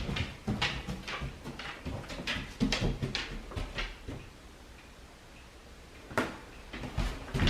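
A dog's claws clicking and tapping irregularly on a hard floor as it moves about. The clicks stop for about two seconds in the middle, then one click, and they pick up again near the end.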